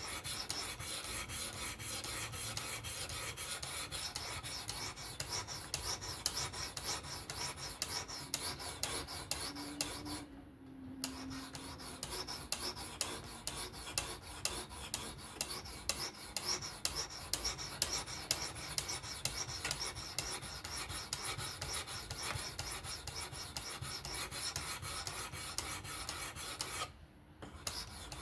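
Diamond sharpening plate of a WSPro fixed-angle sharpener stroked rapidly along the steel edge of a Vosteed Acorn knife blade: a steady rasping scrape. It breaks off briefly twice, about a third of the way in and near the end.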